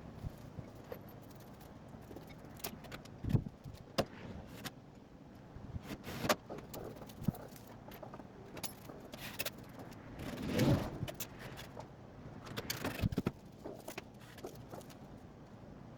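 Scattered metal clinks, knocks and rattles of hand work on a truck's fittings, with a few sharper knocks and a longer rattle about two-thirds of the way through.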